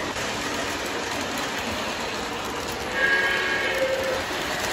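Lionel O-gauge model trains rolling over the track with a steady wheel rumble. About three seconds in, the steam locomotive's whistle sounds in a short, chord-like blast.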